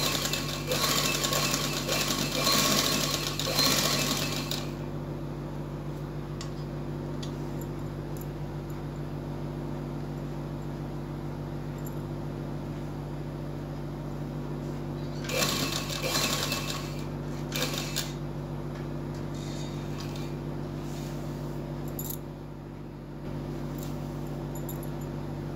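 Sewing machine stitching fabric in two short runs: about four seconds near the start and a second and a half past the middle, with a brief burst just after. A steady low hum runs underneath.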